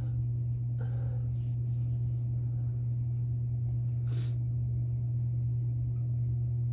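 A steady low hum, with faint soft breath sounds over it, the clearest a short hissing intake about four seconds in.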